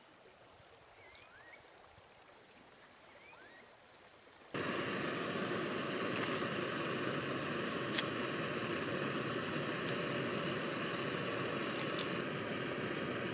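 A few faint bird chirps in quiet, then at about four and a half seconds a small gas-canister camp stove's burner starts a loud, steady hiss under an aluminium pot of noodles. Two sharp clicks come over it as sausage is sliced over the pot.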